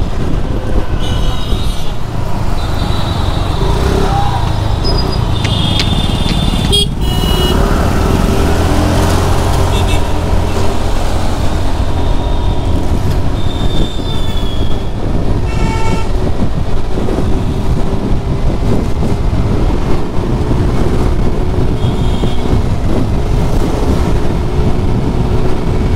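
Wind rushing over a lavalier microphone fitted in a rider's helmet and the rumble of a scooter riding through city traffic, with other vehicles' horns honking several times.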